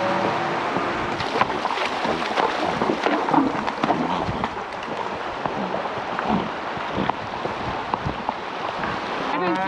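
Cattle herd on the move: hooves knocking and scuffing irregularly on the trail over a steady rushing noise.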